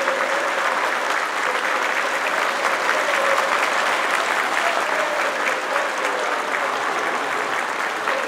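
Audience applauding steadily: a dense patter of many hands clapping.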